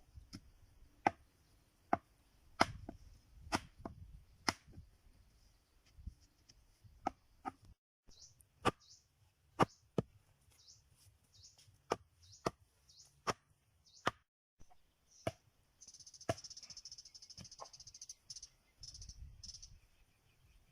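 Repeated sharp chops on wood, about one a second in irregular runs with short pauses. Insects chirp behind them, rising to a steady buzz near the end.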